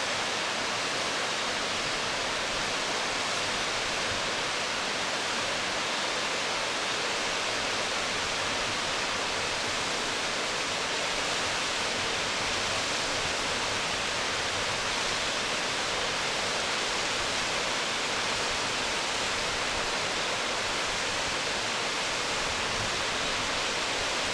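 Waterfall: falling water making a steady, unbroken rushing hiss, with no change in level.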